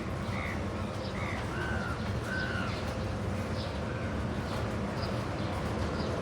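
Crows cawing: a run of short, harsh caws, most of them in the first half and fainter after, over a steady low background rumble.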